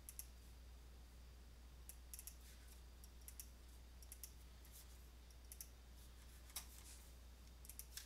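Faint computer mouse clicks, scattered and some in quick pairs like double-clicks, over a low steady hum.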